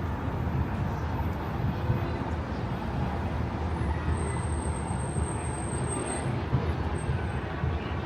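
Steady street noise: a low, fluttering rumble of wind buffeting the microphone over a hiss of passing traffic.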